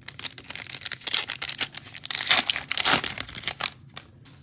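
A Panini Mosaic football card pack's wrapper being torn open and crumpled by hand: a dense crinkling and tearing that is loudest about two to three seconds in and stops shortly before the end.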